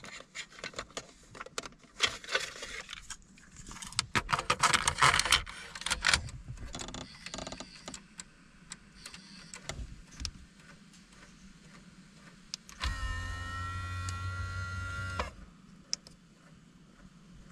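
Clicks and plastic rattles of a car's in-dash navigation and audio unit being handled as a cassette is loaded, then about thirteen seconds in the unit's motorised display panel whines shut for about two and a half seconds.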